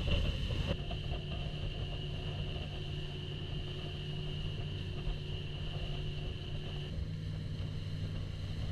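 Small open motorboat's engine running steadily at speed, a constant droning hum with water and hull noise beneath it. The sound shifts abruptly about a second in and again near the end.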